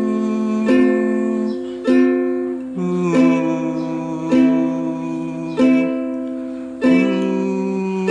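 Soprano ukulele played with single down strums, one about every 1.2 seconds, each chord left ringing, working through the song's intro chord progression (F, A minor, D minor, A minor, A minor 7).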